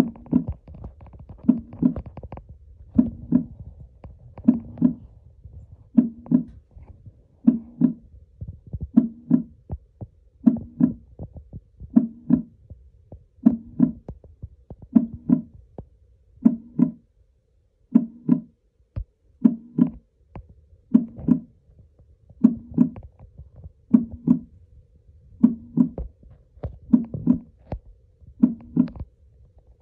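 Heartbeat sound coming from the wooden box beneath a ceramic coral sculpture: slow, even double thumps (lub-dub), about one beat every second and a half.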